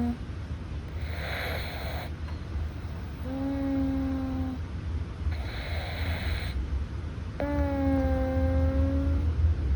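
Russian Blue cat breathing in its sleep through a slightly stuffy nose, snoring softly: each breath alternates a breathy hiss with a held, pitched whistling note, about one breath every four seconds.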